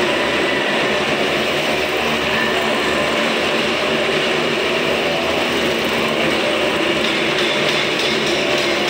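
Several motorcycles running hard as they circle the vertical wooden wall of a wall-of-death drum, their engines blending into one steady, dense drone.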